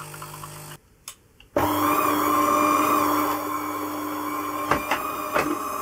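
An opened DeLonghi fully automatic coffee machine running its start-up cycle. A low hum stops just under a second in, followed by a short pause with a click. Then a loud, steady motor hum starts about a second and a half in, with two clicks near the end, and there is no squeak, the sign that the squeaking has been cured.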